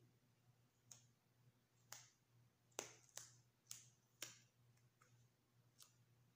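Faint sharp crackles of an adhesive bandage's wrapper and backing being handled and peeled off, about seven over a few seconds, over a faint steady hum.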